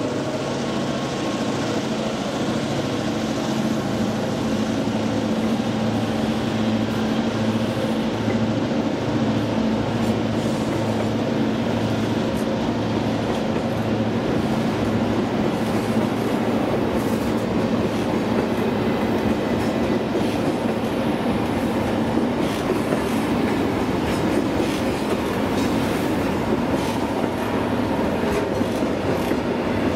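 Grain hopper wagons rolling past at speed, their wheels rumbling on the rails with a clickety-clack, the clicks coming more often in the second half. A steady low hum under the rolling noise fades away about two-thirds of the way through.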